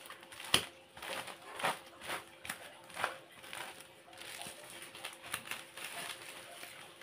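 Thin plastic food bags crinkling and rustling in irregular bursts as hands pick up and handle small filled bags, over a faint steady hum.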